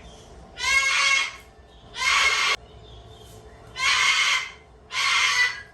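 A parrot squawking four times in loud, harsh calls, each under a second long.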